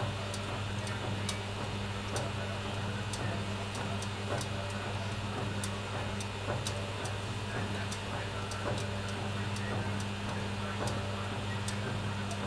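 Baumkuchen oven running with its spit turning in front of the electric heating elements: a steady low hum with light ticks roughly once a second.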